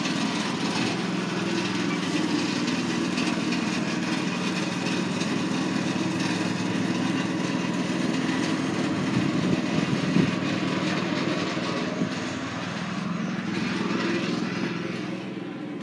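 An engine running steadily with a constant hum, a little quieter near the end.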